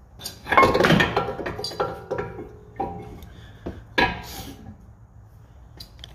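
Metal clinking and scraping as a new front brake pad with retaining pins is pushed into a BMW E60 brake caliper. The loudest clatter, with a brief ringing, comes about half a second in, followed by several sharp clicks over the next few seconds as the pad seats.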